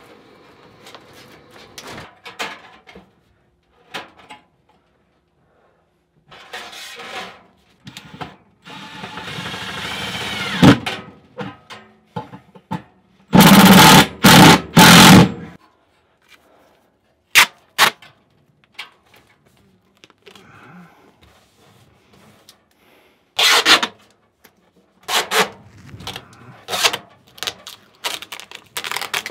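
Rigid metal dryer vent duct rattling and scraping as an elbow is twisted into place, then a cordless drill driving screws in three short, loud bursts about halfway through. Near the end, short crackling pulls of foil tape coming off the roll as the duct joint is sealed.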